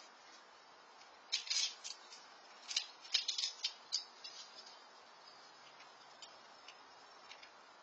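Squirrel cracking and chewing peanut shells: a quick run of crisp clicks and crunches between about one and four seconds in, then only faint background hiss.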